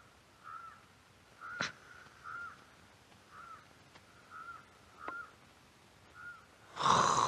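Crows cawing, short calls repeated about once a second, with a few faint sharp clicks and a louder, harsher burst near the end.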